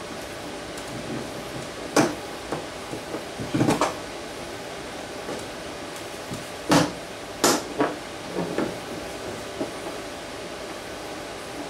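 Scattered wooden knocks and clunks as a plywood box and hand tools are handled on a workbench, a few sharp ones spaced irregularly, over a steady background hum.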